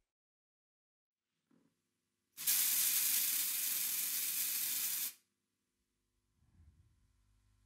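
Silence, then a loud burst of even hiss like white noise that starts abruptly about two and a half seconds in and cuts off suddenly after nearly three seconds. A faint low hum follows near the end.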